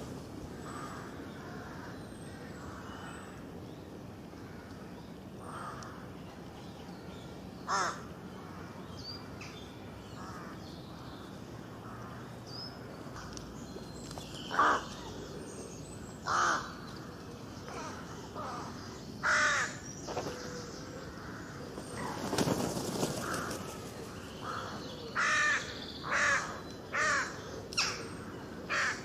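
Birds calling: short, loud calls come singly at first, then about one a second near the end, over faint background chirping.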